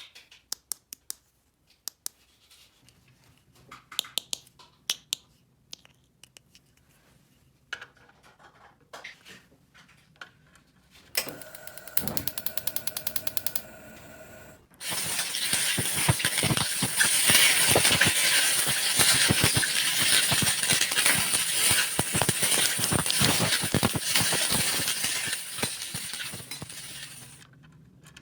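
Small plastic toy kitchen pieces clicking and tapping for about ten seconds. Then fast even ticking with a faint tone for a few seconds, then a loud crackling, rattling noise for about twelve seconds that stops near the end.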